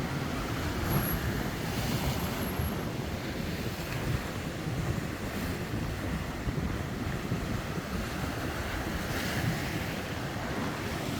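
Heavy surf breaking and washing on the shore in a strong wind, with wind buffeting the microphone.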